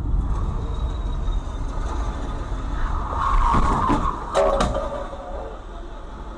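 Car engine and road noise heard from inside the cabin by a dashcam. About three seconds in a louder, rough noise rises, and about four and a half seconds in there are two sharp knocks in quick succession as a white sedan cuts in just ahead.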